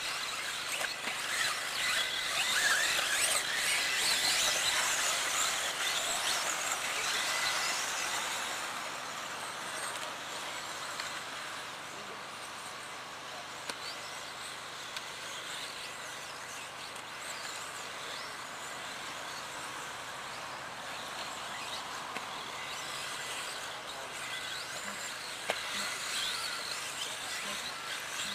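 Several 1/10-scale electric 4WD RC buggies racing: the high-pitched whine of their brushless motors and drivetrains, louder for about the first eight seconds, then fainter.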